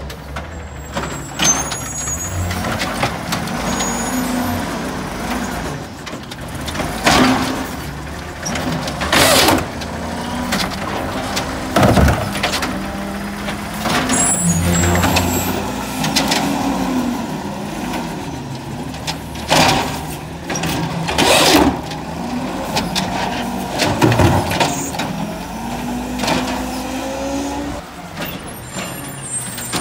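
A garbage truck's diesel engine running with shifting pitch, broken by about half a dozen sudden loud bangs and hisses.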